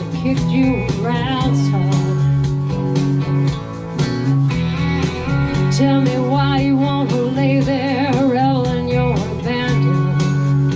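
Live band playing a blues-rock number: a lead line with bending, wavering notes over sustained bass and a steady drum beat.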